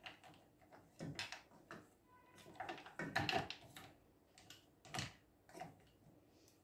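A spoon stirring unmelted squares of dark chocolate in a saucepan, the hard pieces and spoon knocking against the pot in irregular light clicks. The busiest cluster comes about three seconds in.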